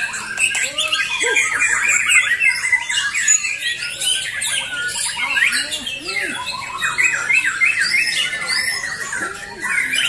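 Many caged white-rumped shamas (murai batu) singing at once in a song contest: a dense overlap of fast whistled phrases that rise and fall, with no pause.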